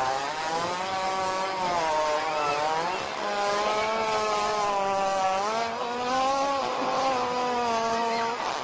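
A long, drawn-out fart: one buzzy, pitched tone lasting about eight seconds, its pitch wavering slowly up and down.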